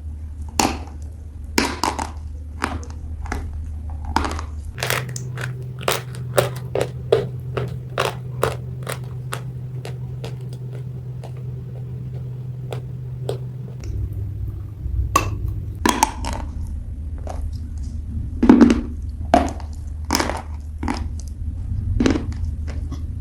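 Gray clay (gachi) being bitten and chewed close to the microphone: a run of sharp crunches, quick and dense for several seconds in the middle and more spaced out before and after, over a steady low hum.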